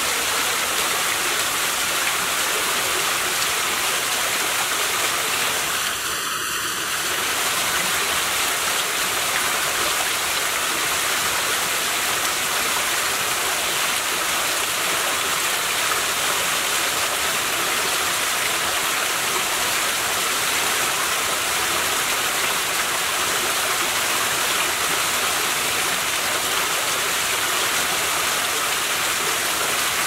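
Small waterfall splashing over rocks into a shallow pool: a steady, continuous rush of falling water.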